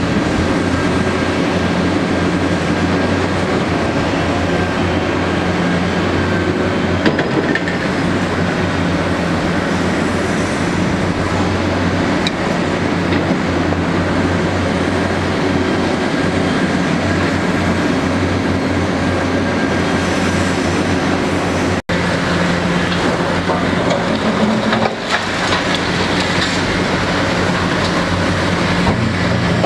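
Large tracked hydraulic excavators working at a dig, their diesel engines running under load with a steady low hum. The sound drops out for an instant about two-thirds of the way through.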